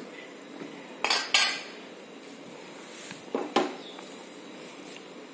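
Metal pot lid clanking against the rim of a cooking pan as it is lifted off and set down: two quick clanks about a second in, and two more about three and a half seconds in.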